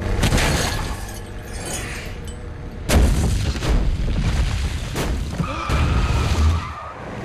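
Action-film sound effects of a logging truck's chain snapping and heavy logs crashing down and bouncing across the highway: a sudden burst at the start, then a series of heavy booming impacts, the first and sharpest about three seconds in. A brief high squeal sounds near the end.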